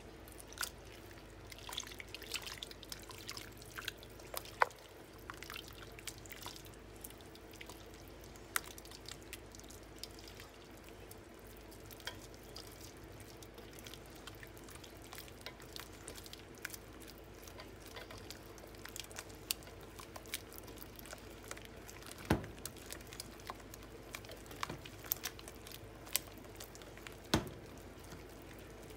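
A silicone-coated wire whisk beating a thick, creamy cheese mixture in a glass bowl: wet stirring and squishing with many small clicks, and a few sharper knocks of the whisk against the bowl, the loudest two in the second half.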